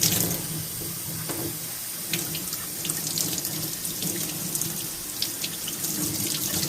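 Water running steadily, with a few faint small clicks over it.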